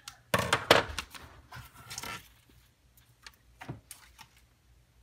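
Scissors and a paper template being handled and put down on a wooden bench: two short clattering, rustling bursts in the first two seconds, then a single light tap.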